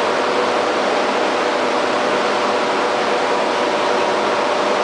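Steady machinery noise: an even hiss with a faint hum under it.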